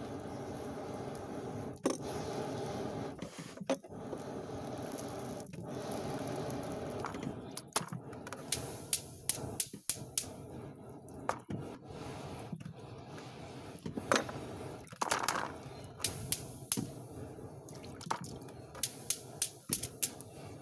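Charcoal forge fire under an air blast, presumably from a fuigo box bellows: a steady rush of air that dips briefly every couple of seconds. Charcoal crackles and pops with sharp clicks, more often from about eight seconds in.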